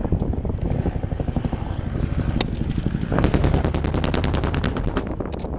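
Air show pyrotechnics going off over a steady low rumble: a single sharp crack, then about three seconds in a fast run of sharp cracks, like machine-gun fire, lasting about two seconds.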